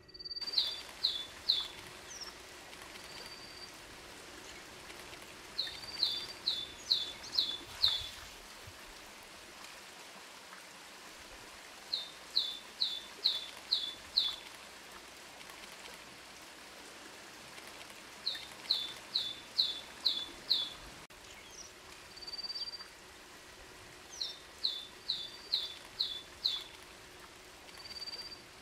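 Green-backed tit singing: phrases of four to six quick, clear downslurred whistles, repeated every five to six seconds, with single short whistles between phrases.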